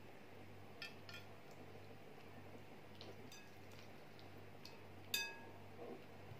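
Ceramic baking dish handled as fish are laid into it: a few faint clicks and one sharper, briefly ringing clink about five seconds in, over a low steady hum.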